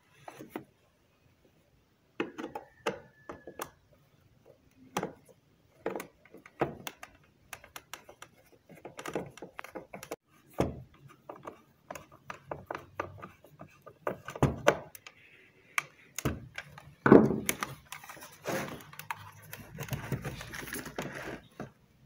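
Screwdriver driving screws into the plastic bottom cover of an Osterizer Galaxie blender, with scattered irregular clicks, scrapes and knocks from the tool and the housing being handled. A louder thump comes about seventeen seconds in, followed by denser handling noise.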